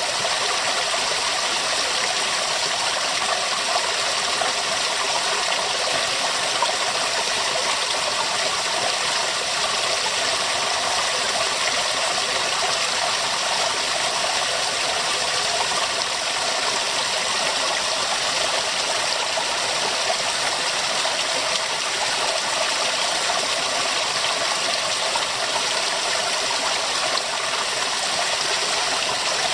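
River water flowing and rushing over rocks, a steady, even splashing and gurgling rush.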